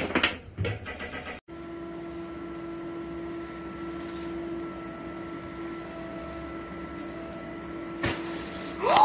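Automatic self-cleaning litter box running its motor with a steady hum as the globe-shaped drum slowly turns through a cleaning cycle, with a click near the end. A loud raised voice fills the first second before a sudden cut.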